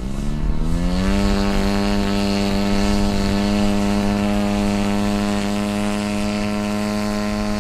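Radio-controlled model airplane's motor and propeller speeding up over the first second, then running at a steady pitch as the plane taxis.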